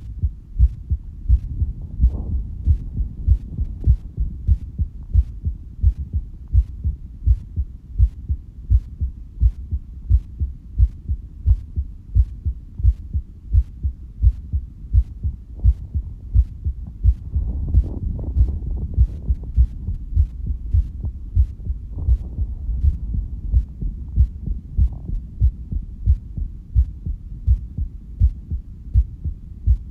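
Human heartbeat picked up close, beating in a steady, even rhythm of low beats. About seventeen seconds in, a short stretch of louder noise sits under the beats.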